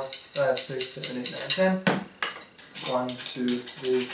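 Hand file rasping back and forth on the edge of a sheet-metal plate, about three quick strokes a second with a short pause midway, the thin plate ringing with each stroke. The plate is being filed wider because the linear rail still catches in it.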